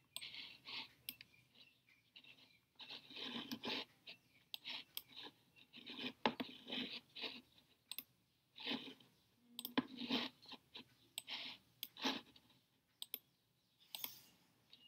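Irregular scratching and rustling with scattered sharp clicks, in short uneven bursts.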